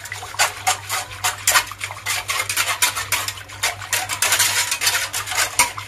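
Wire whisk beating milk in a metal saucepan, its wires ticking and scraping rapidly against the pan's sides and bottom.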